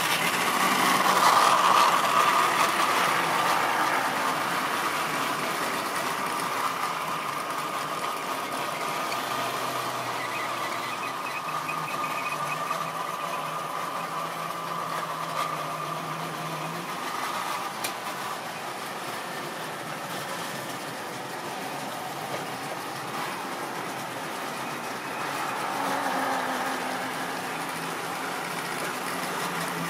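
Tri-ang OO-gauge model train running on its track: the locomotive's electric motor whines steadily over the sound of the wheels running on the rails. It is loudest about two seconds in, as the locomotive passes close by, and swells again near the end as it comes round once more.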